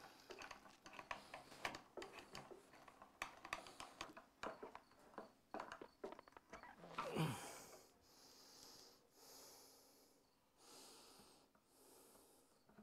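Quiet clicks and small knocks of a metal drawer slide and screws being worked by hand against a wooden bench top, then about seven seconds in a short falling groan followed by a few slow, heavy breaths.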